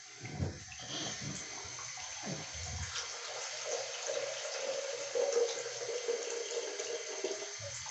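Bathtub faucet running, water pouring into a plastic cup to fill it. A few dull knocks in the first three seconds.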